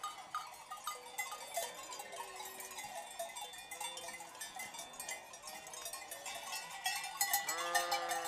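Bells on a large sheep flock clanking unevenly as the animals walk, with sheep bleating here and there; the bleating and clanking grow louder near the end.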